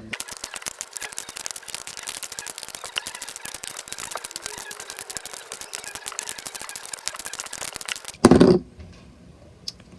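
Rubik's cube with its tensioning screws tightened very hard being turned fast, a dense stream of plastic clicks and clacks from the stiff, over-tensioned layers. The clicking stops about eight seconds in with one short louder sound.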